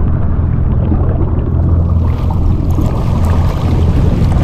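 Steady low rumble of a jet ski at idle, mixed with wind buffeting the microphone.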